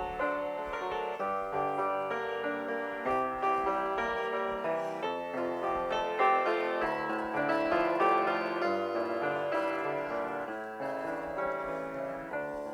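Piano introduction to a slow hymn, with a sequence of notes and chords played before the singing begins.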